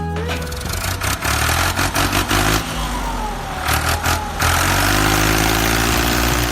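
Engine or motor running and revving, with a whine that dips and rises in pitch, over background music.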